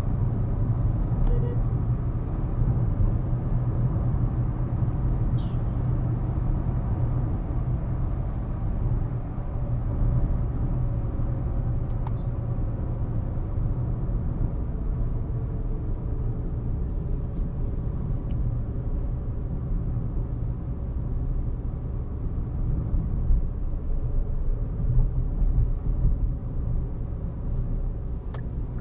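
Hyundai Exter's 1.2-litre Kappa four-cylinder petrol engine running steadily while the car cruises, a steady low drone mixed with tyre and road noise, swelling slightly near the end.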